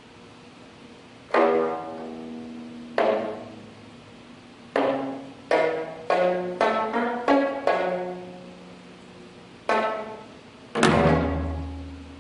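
Geomungo notes plucked with a bamboo stick, each with a sharp attack and a fading ring: a few single strokes at first, then a quicker run of notes. Near the end a low drum beat sounds together with a stroke.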